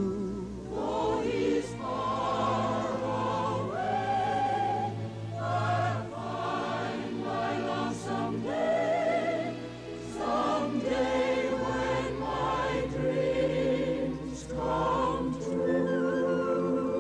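A choir singing long, wavering notes over orchestral music, with no words that can be made out.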